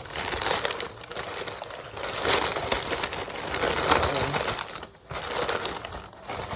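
Packaging being unwrapped by hand, crinkling and rustling in uneven bursts with short pauses between.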